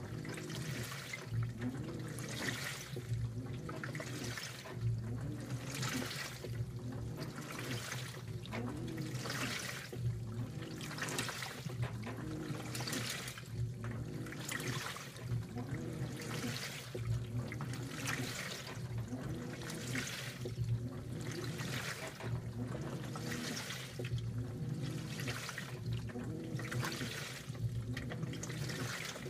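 2012 LG top-load washer agitating a load. Water sloshes in even surges about once a second, and each stroke carries a motor whine that rises and falls as the drive reverses, over a steady low hum.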